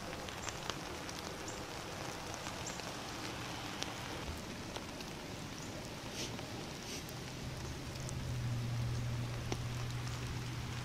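Light rain falling steadily, with scattered sharp drop ticks. A low steady hum comes in about seven seconds in and holds on.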